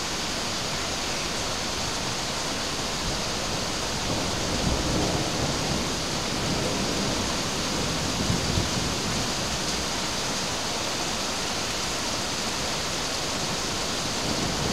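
Heavy rain falling steadily, with low rumbles of thunder swelling about four and eight seconds in.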